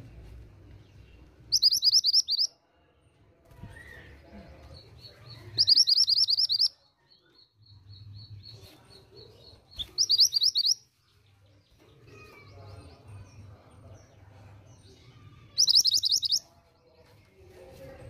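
Female mantenan gunung (a minivet) calling: four short bursts of rapid, high-pitched trilled notes, each about a second long and a few seconds apart.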